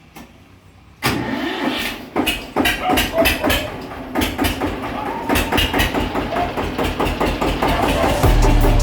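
Eicher 242 tractor's single-cylinder diesel engine starting about a second in and then running with a rapid run of knocking beats.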